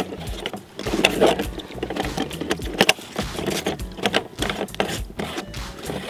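A stovetop moka pot closed on dry ice and hot water, giving off irregular metallic clicking and rattling as it is handled and as the gas sputters out, with a sharper knock about three seconds in.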